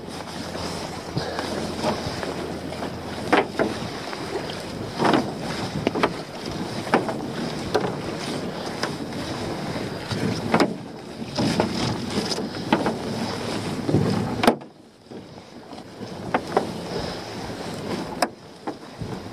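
A lobster pot line being hauled hand over hand into an aluminium dinghy: wet rope coming in over the metal gunwale and dropping into the boat, with sharp knocks and clatters against the hull every second or two over a steady rush of noise. The rush cuts off suddenly about fourteen seconds in.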